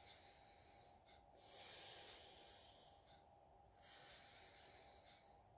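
Faint nasal breathing during alternate-nostril breathing (anulom vilom), air hissing through one nostril while the other is pressed shut. There is a long breath from about a second in and another shorter one near the end.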